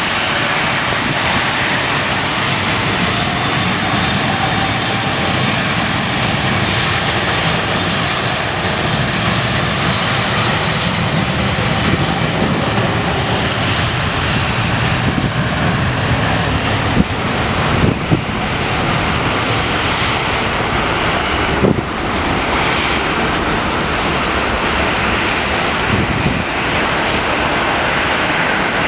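Airbus A330neo's Rolls-Royce Trent 7000 turbofan engines running at takeoff power as the jet departs: a loud steady rush of jet noise with faint slowly gliding tones. A few brief sharp clicks come in about two-thirds of the way through.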